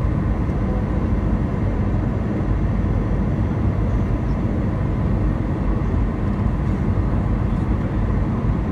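Steady cabin noise of an Airbus A320 on final approach, heard from inside the cabin: a low rumble of engines and airflow with a faint steady whine above it.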